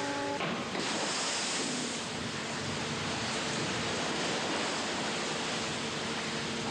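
Steady rushing noise of wind and sea water on a fishing boat's open deck, with a faint steady hum underneath. A steady multi-note tone cuts off about half a second in.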